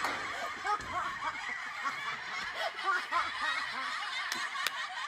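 A crowd of people laughing and chuckling together, many voices overlapping throughout.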